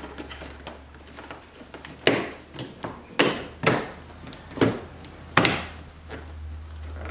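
Snap-in clips of a carbon-fiber-pattern frunk surround trim panel on a C8 Corvette being pressed home by hand: about six sharp clicks, scattered between about two and five and a half seconds in, among quieter rubbing and handling of the panel.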